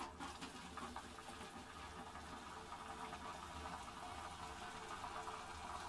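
Pot of boiled cauliflower being drained into a strainer at the sink: the hot cooking water pours off in a faint, steady run.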